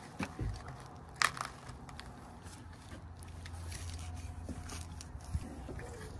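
ZIP System flashing tape crinkling and crackling as it is stretched and pressed by hand onto a window's top flange, with a sharper crackle about a second in. A low hum runs beneath it in the middle.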